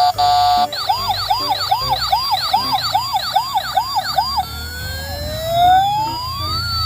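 Toy ambulance's electronic siren sound: two short beeps, then a fast repeating rising wail about twice a second, which changes a little past the middle into one slow rising sweep.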